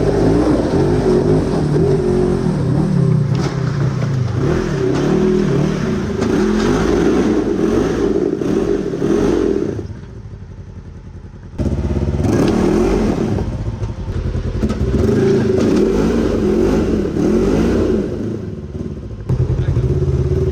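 Side-by-side UTV engine revving and easing off as it crawls over rocky ledges. About ten seconds in the engine drops back for a second or so, then picks up again suddenly.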